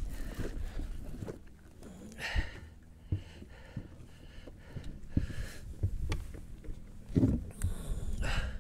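Handling noises: a hand rummaging through a fabric bag, then scattered rustles and knocks as gear is moved about, a few separate sounds spread over several seconds.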